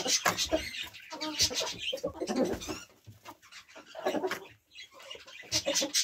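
A flock of hens clucking in low, irregular calls, mixed with many short clicks.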